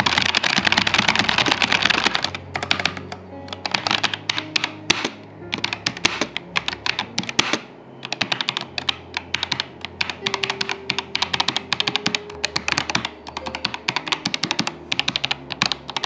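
Typing on an ASUS ROG Claymore II mechanical gaming keyboard with ROG RX optical mechanical switches: rapid key clicks, very dense at first, then in shorter runs with brief pauses, demonstrating the keystroke sound.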